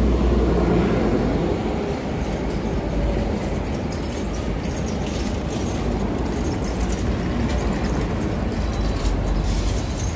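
Steady rumble of city traffic, with a few short clicks and rustles in the later part.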